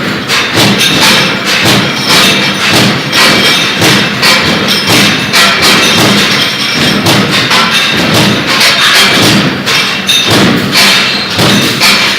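J23-63T deep-throat mechanical punch press stamping with a CNC feeding table: rapid, repeated thuds.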